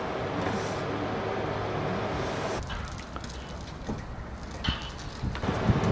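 Construction-site machinery running with a steady low hum. A little over halfway it gives way to quieter site sound with scattered metal clinks of a crane's lifting chain and steel formwork panels, ending in a loud knock.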